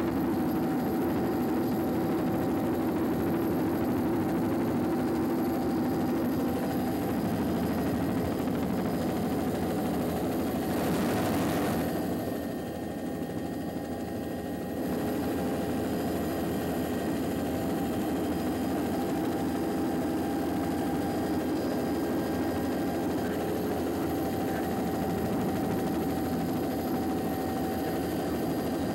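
Steady engine drone of the aircraft carrying the camera, heard from on board. It dips briefly about halfway through.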